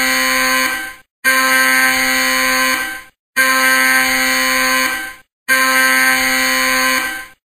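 A loud, steady buzzer-like alarm tone, sounded four times for about two seconds each with short breaks between, identical each time.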